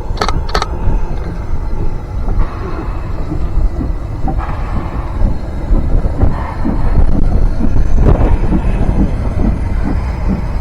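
A steam train running past on the line: a continuous heavy rumble with irregular clatter. Two sharp cracks come right at the start.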